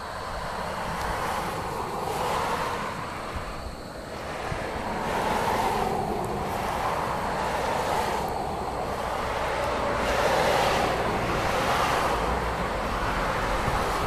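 Road traffic: several vehicles passing one after another, each a swelling and fading rush of tyre noise, over a low rumble of wind on the microphone.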